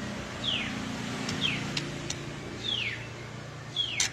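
White-rumped shama (murai batu) calling: four falling whistled notes, about one a second, with sharp ticks between them. A steady low hum runs underneath.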